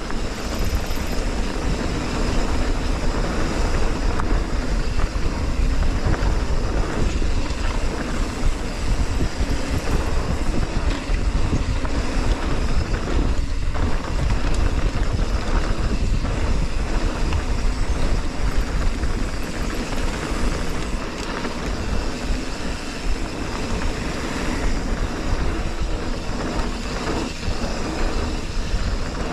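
Wind rushing over the camera microphone of a mountain biker riding downhill, with continuous tyre rumble and occasional knocks and rattles from the bike on a rough trail.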